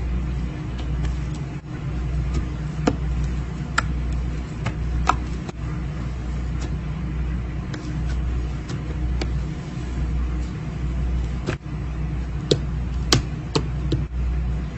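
Slime being squeezed and poked, with scattered small clicks and pops over a steady low rumble.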